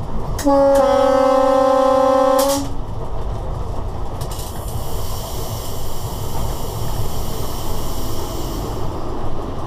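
A locomotive's horn sounds one steady blast of about two seconds, loud inside the driver's cab, over the rumble and clatter of the locomotive running along the track.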